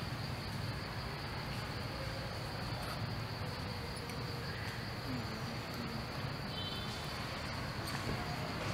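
Insects droning steadily in the forest canopy, a continuous high-pitched buzz over a low background rumble.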